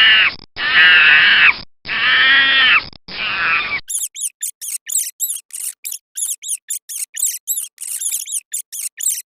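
A run of long, drawn-out animal calls, then from about four seconds in a rapid series of short, high squeaks, several a second, typical of a rat.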